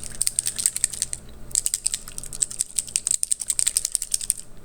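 Small bottle of homemade oil being shaken, with hard cough-drop chunks rattling inside in runs of rapid clicks. The runs break off briefly about a second in and again just after three seconds.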